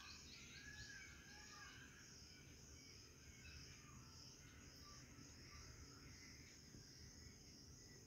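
Near silence: faint room tone with a steady high hiss, and a quick run of faint high chirps in the first second.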